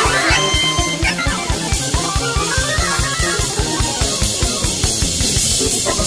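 Jazz fusion band playing: drum kit and bass keep a fast, even low pulse under guitar and keyboard lines.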